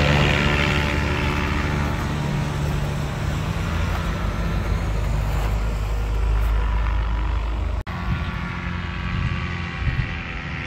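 Airboat's 30 hp Loncin engine and pusher propeller running steadily as the boat moves away, the high hiss thinning out with distance. The sound drops out for an instant about eight seconds in.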